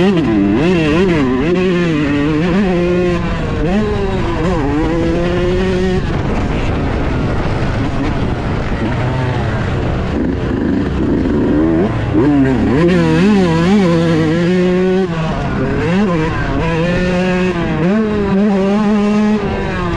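Yamaha YZ125 single-cylinder two-stroke dirt bike engine under riding load, its pitch rising and falling over and over as the throttle opens and closes and the gears change. The engine note fades for a few seconds midway before picking up again.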